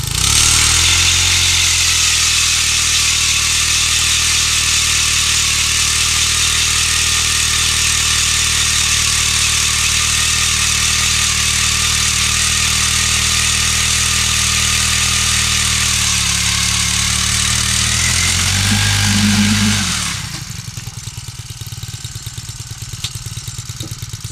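Jiffy four-stroke propane ice auger engine throttled up and running steadily under load as it drills through thick lake ice. The revs rise briefly near the end, then drop back to idle about 20 seconds in.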